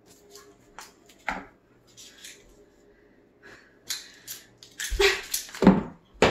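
Masking tape being pulled off its roll and pressed onto a plastic toothbrush in short crackling pulls, followed by two louder short sounds about five seconds in.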